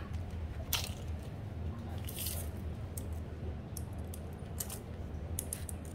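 Scattered light clicks and rustles of a used CNC ball-screw module being handled, over a steady low hum.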